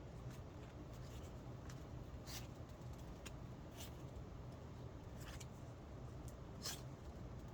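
Faint, scattered clicks and rustles of trading cards being handled and flipped through, about ten in all, over a low steady hum.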